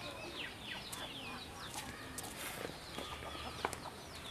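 Birds calling in the open, chickens among them: many short, falling chirps, some overlapping, with a few faint clicks.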